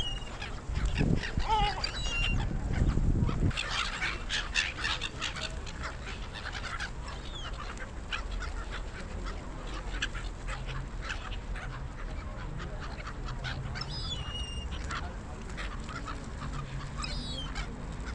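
Gulls calling: scattered short squawks and cries, some gliding in pitch. A dense flurry of quick clicks comes about four seconds in, and a low rumble runs under the first few seconds.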